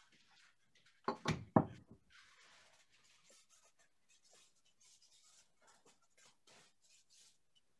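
Kitchen handling sounds as hand pies are set out on parchment paper on a sheet pan: faint rustling and light taps, broken about a second in by a brief loud clatter of two or three knocks.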